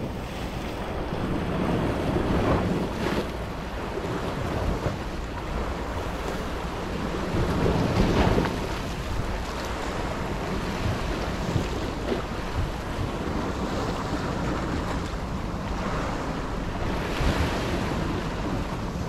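Sea waves washing and breaking against shoreline rocks, with wind buffeting the microphone. The surge swells several times, loudest about eight seconds in.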